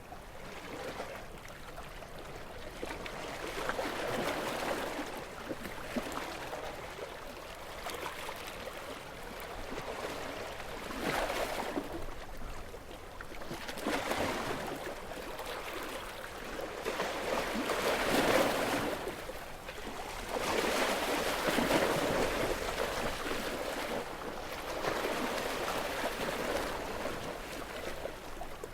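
Gentle sea waves washing ashore, with the wash swelling and fading every few seconds.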